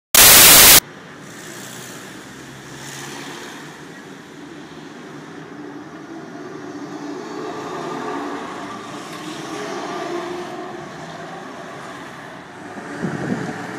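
A brief blast of loud hiss in the first second, then street noise with trolleybuses driving by, their electric motors humming, growing louder toward the middle. A couple of low thumps come near the end.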